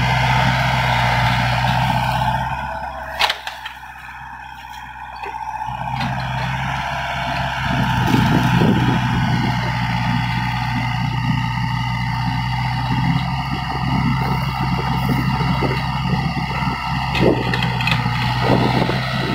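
Doosan mini excavator's diesel engine running steadily. It drops back for a few seconds after a sharp click about three seconds in, then picks up again, louder and rougher, as the arm works the bucket.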